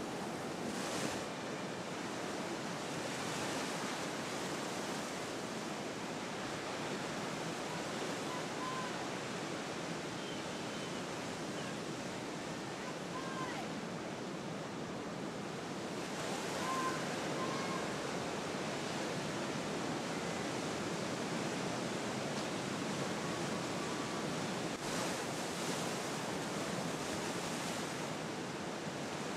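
Steady wash of ocean waves and surf with some wind, swelling a little now and then. A few faint short chirps sound above it.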